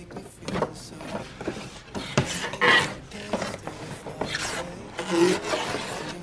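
Objects being handled: scraping and rubbing with scattered clicks and knocks, louder bouts of scraping about two and a half and five seconds in.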